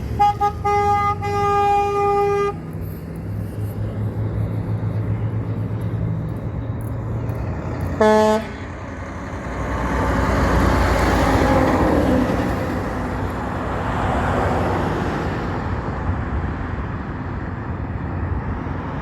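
Truck horn sounding two short toots and then a held blast of about a second, over a low engine hum. About eight seconds in comes a short, lower-pitched horn blast, then a passing truck's engine and tyre noise swells and fades.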